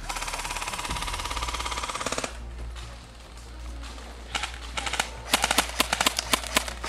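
Airsoft rifle fire: a rapid full-auto burst lasting about two seconds, then, after a short pause, a string of sharp single shots in quick succession.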